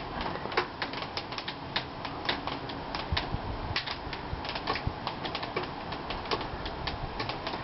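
Irregular light tapping and clicking, several a second, of wet snow and meltwater drips landing on hard surfaces, over a steady hiss, with the air just above freezing and the snow melting.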